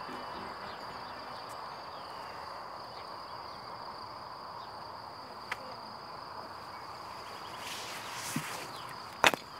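Quiet ambience: a steady high-pitched trill over a low even hiss, with a few faint clicks and a brief rustle, then one sharp knock near the end.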